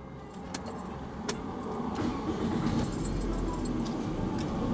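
A car engine running steadily with a low rumble, with light metallic jingling and scattered clicks, the loudest jingling about three seconds in.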